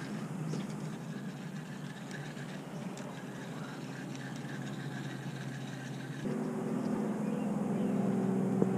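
A steady, low, engine-like hum over a rushing background, growing louder and more tonal with a sudden change about six seconds in.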